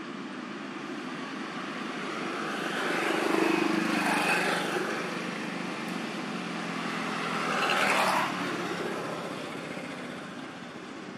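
Passing road traffic: motor vehicles go by twice, one swelling up and fading about three to four seconds in, the next peaking about eight seconds in and dropping away quickly, over a steady background hiss.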